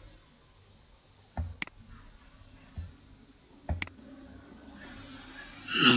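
Two clicks of a computer mouse button about two seconds apart, each a dull press followed by a sharper click, over a faint steady hiss.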